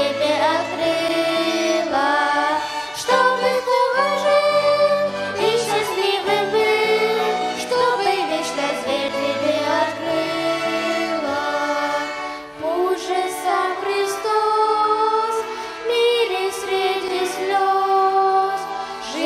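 A group of singers performing a Christian song, accompanied by a violin ensemble, the voices holding sung notes with vibrato over sustained lower accompaniment.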